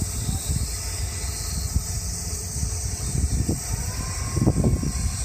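Mojiko Retro trolley train pulling away: a low, steady rumble with irregular low thumps that grow heavier near the end. A thin steady high tone comes in about three and a half seconds in.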